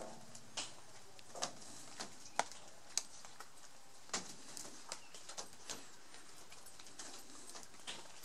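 Footsteps on a hard floor: a run of sharp, irregular taps, about one or two a second, over a faint steady hiss.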